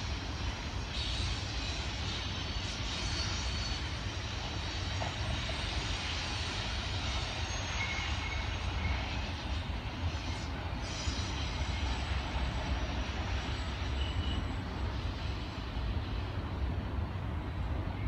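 Double-stack intermodal container well cars rolling past at steady speed: the even, continuous noise of steel wheels running on the rails, heaviest in the low end.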